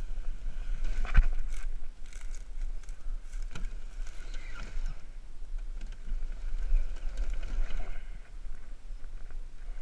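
Steady low rumble and rustling from a moving body-worn camera, with a few sharp knocks, the loudest about a second in.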